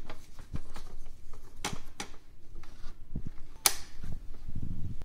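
Hard plastic clicks and knocks as a replacement feed roller is handled and fitted onto its shaft in an OKI B6200 laser printer's paper feed. There are a few sharp clicks, the loudest about three and a half seconds in, with smaller ticks between them and a low rustle of handling near the end.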